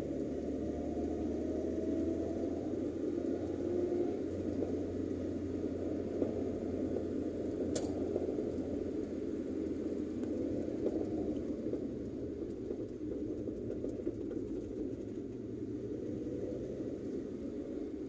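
Car driving on a winding paved road, heard from inside the cabin: a steady rumble of engine and tyres on the road, with a single sharp click about eight seconds in.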